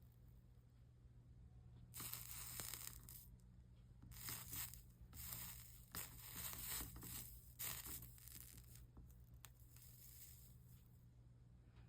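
Flux sizzling and hissing under a hot soldering iron as solder is run along the copper-foiled seams of a stained-glass panel, in several short bursts with brief pauses between, fading out in the last few seconds.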